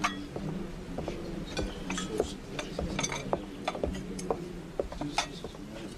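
Dishes, glassware and cutlery clinking and knocking irregularly as a tray of food and a beer mug are carried and served, a dozen or so light clinks over a low steady background hum.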